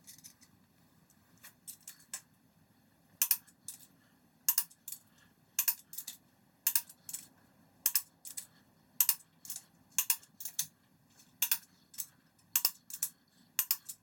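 Torque wrench clicking as the main bearing cap bolts of a 6.0 LQ4 block are torqued down in sequence: sharp metallic clicks, mostly in pairs, about once a second from about three seconds in.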